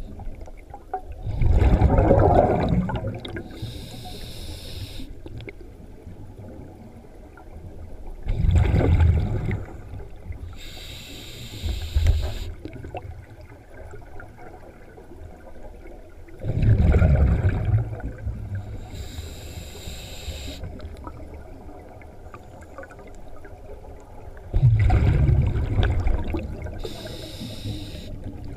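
Scuba diver breathing through a regulator underwater: four slow breath cycles, each a loud rumbling gush of exhaled bubbles followed a couple of seconds later by a short hiss of the demand valve on the inhale.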